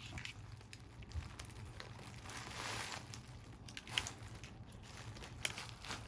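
Faint rustling and a few light clicks of hands handling wires and the panel's plastic and metal parts, with a soft rustle about two seconds in. A low steady hum runs underneath.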